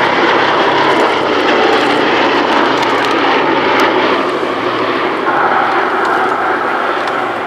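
Boeing B-17G Flying Fortress in flight, its four Wright Cyclone radial engines droning steadily as it banks away, fading slightly near the end.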